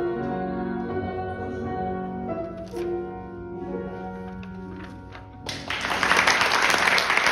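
Piano accompaniment plays the closing bars of a song, fading toward the end. About five and a half seconds in, the audience starts applauding, and the applause is the loudest sound.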